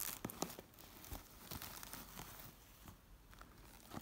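Faint crinkling of the clear plastic shrink-wrap on a boxed body lotion as it is pulled from a fabric pouch and turned over in the hand, with scattered light ticks. The crinkling is densest in the first second.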